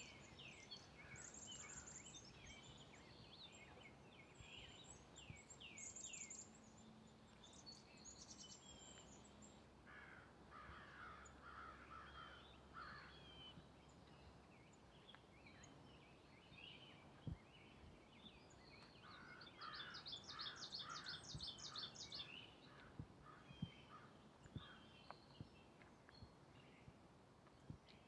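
Faint songbird calls and song from several birds, coming in clusters, with a few soft ticks that fit footsteps on a woodland trail.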